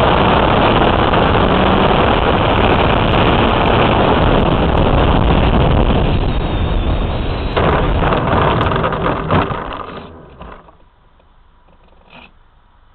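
Radio-controlled model airplane's engine and rushing air from its onboard camera during a landing: loud, steady noise that fades away as the plane slows, with a few knocks as it touches down. The sound drops away about ten seconds in, leaving a faint hiss.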